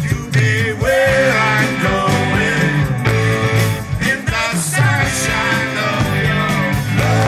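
Live blues-rock band playing loudly: electric bass and electric guitar over keyboards, with a lead line bending in pitch above the steady bass notes.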